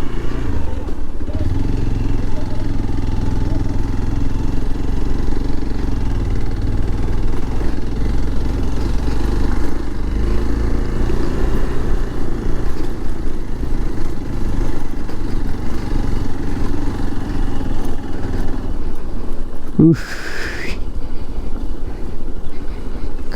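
Hero XPulse single-cylinder motorcycle engine running steadily at low speed over a rough trail, with a continuous low rumble. A short rising sound cuts in near the end.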